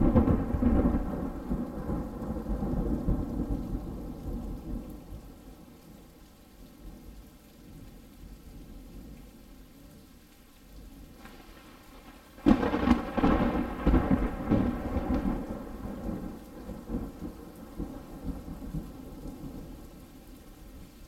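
Thunderstorm recording: a loud thunderclap at the start and another about twelve seconds in, each rolling off into a long rumble, over steady rain.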